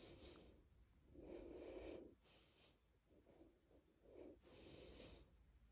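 Black leopard purring faintly on its breaths, in several soft bursts each under a second long.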